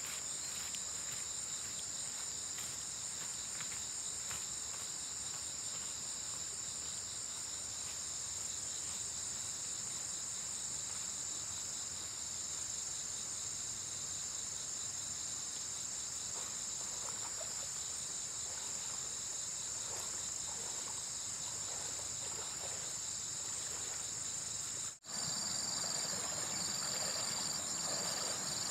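Insects chirring in a steady, high-pitched chorus. About 25 seconds in, the sound cuts out for an instant, and a second, pulsing trill joins the chorus.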